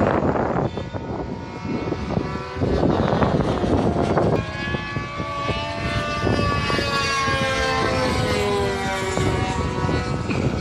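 Radio-controlled model airplane's engine and propeller buzzing in flight, its pitch slowly wavering as the plane moves about the sky.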